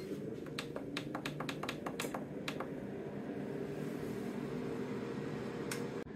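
Ninja Speedi air fryer running with a steady fan hum while its control-panel buttons are clicked about ten times in quick succession, turning the set temperature down; one more click near the end.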